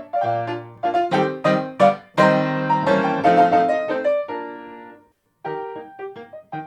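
TOYO A-25 grand piano playing a Viennese waltz, chords struck in a lilting rhythm. A loud full chord about two seconds in rings and fades, the music stops briefly near the end, then quieter playing resumes.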